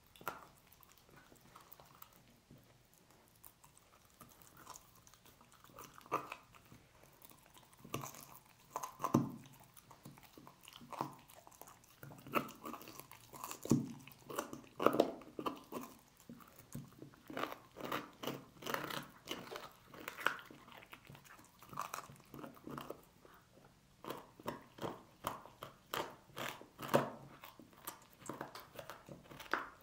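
A dog crunching and gnawing on pork bones: irregular cracks and bites, sparse at first, then coming several a second from about twelve seconds in, with a short pause near the end.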